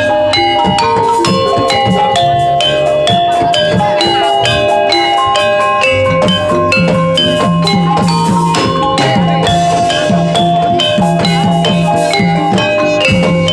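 Jaranan gamelan music: mallet-struck metal keys playing a fast, busy melody of ringing notes over drums.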